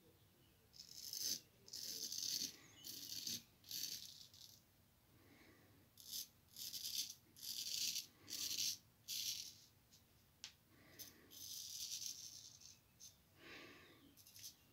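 Straight razor scraping through lathered stubble in short strokes. Each pass gives a crisp rasp, and the strokes come in quick runs of several with brief pauses between them.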